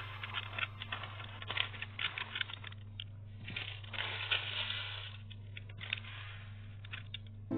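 Scissors snipping through baking parchment for the first couple of seconds, then the paper crinkling and crackling as it is pressed into a tart tin.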